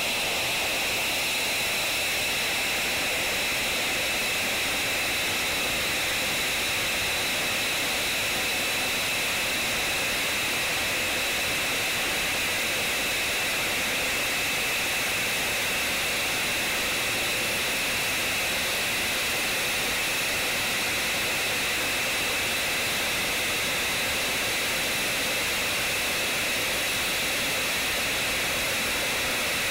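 Lockheed Martin F-35's single Pratt & Whitney F135 turbofan running at low taxi power: a steady, loud rush with a high-pitched whine over it.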